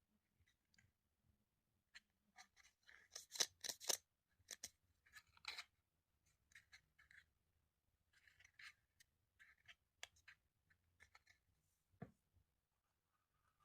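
Plastic toy pieces and packaging being handled: an irregular run of light clicks and crinkly rustles, busiest and loudest three to four seconds in.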